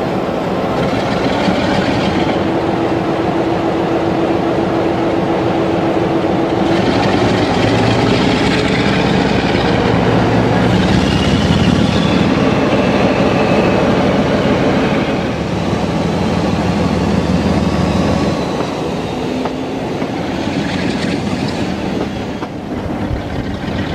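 Class 47 diesel-electric locomotive's Sulzer twelve-cylinder engine working hard with the train on the move, passing under a brick overbridge. The deep rumble drops away about eighteen seconds in.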